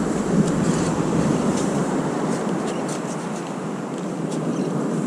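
Steady wash of wind and surf noise on the action camera's microphone, with a few faint scattered ticks.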